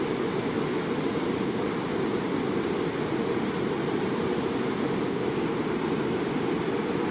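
Waterfall: a steady, even rush of falling water, heaviest in the low range.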